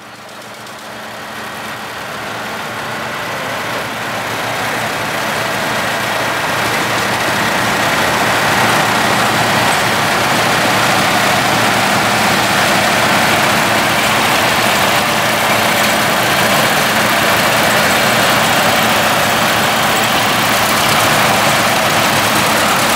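Tractor engine running steadily as a tractor with a trailer drives past, growing louder over the first several seconds and then holding level.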